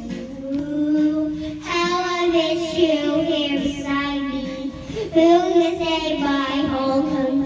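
A young girl singing into a handheld microphone: three long held notes, each with a wavering pitch, with short breaks between them.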